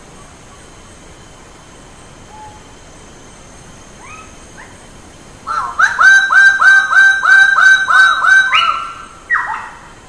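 Bird-of-paradise calling: a few faint short calls, then about five seconds in a loud rapid series of about a dozen calls, roughly three a second, ending with one separate call, over a steady hiss.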